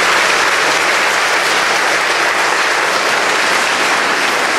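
Congregation applauding, a steady unbroken clapping.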